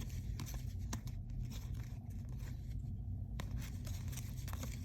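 Trading cards being flipped through and shuffled by hand: a scatter of light clicks and slides of card stock over a steady low hum.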